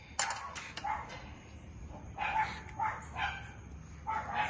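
A dog barking: a string of short, high barks, about seven spread over the few seconds.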